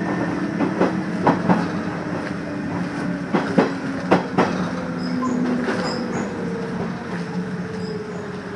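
Nishitetsu electric train heard from inside, its wheels clicking sharply over rail joints, then slowing as it pulls into a station, with a steady whine falling slowly in pitch as it brakes.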